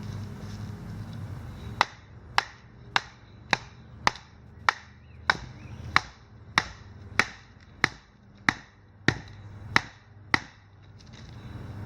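Knife being batoned to split wood, struck on its spine again and again: about fifteen sharp knocks at an even pace, a little over half a second apart, starting about two seconds in and stopping near the end.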